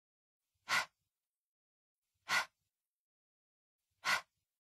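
A person's voice breathing out the phonics sound for the letter h, a short breathy "hh" with no vowel, three times about a second and a half apart.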